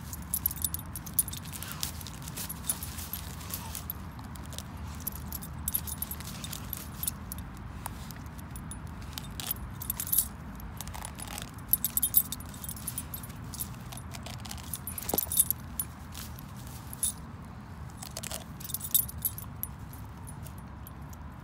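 Metal dog tag and leash clip on a collar jingling in irregular short clusters as a dog digs and noses into a hole in dry grass.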